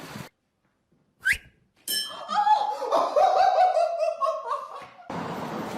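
Laughter: a run of short notes that each fall in pitch, lasting about three seconds, after a brief rising squeak about a second in.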